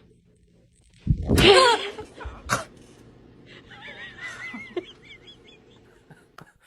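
A startled person lets out a sudden loud shriek about a second in, with a falling pitch, followed by a sharp click and then quieter, wavering high-pitched laughter.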